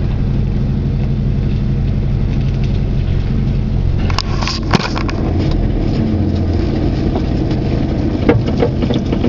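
Opel Kadett C's four-cylinder engine running steadily while the car drives slowly, heard from inside the cabin. A few short knocks come about four to five seconds in and again near the end.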